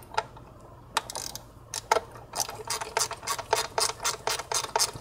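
Hand ratchet clicking as a T30 Torx screw is backed out of a bracket on a plastic intake manifold. A few separate clicks come first, then from about two seconds in a steady run of about five clicks a second.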